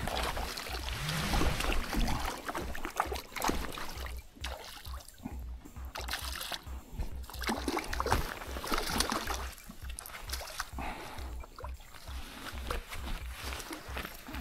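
Hooked twaite shad splashing and thrashing at the surface of shallow river water as it is reeled in on a line, in irregular splashes.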